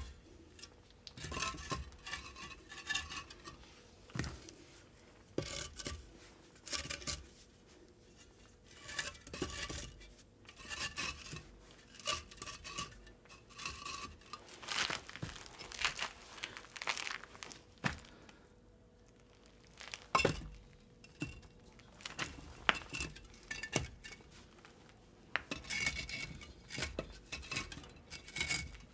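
Irregular clinking and scraping of hard objects being handled, in short clusters with brief ringing tones, mixed with some rustling.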